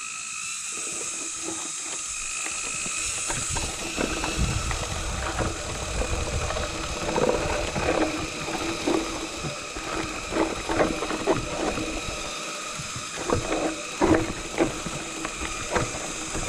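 Mountain bike on a rough trail: freewheel ratchet ticking and frame and parts rattling, with many irregular clicks and knocks, thickest in the second half.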